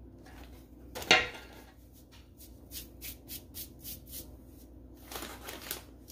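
Kitchen handling noises: a sharp knock about a second in, then a run of light ticks, about three or four a second, and a short rustle near the end.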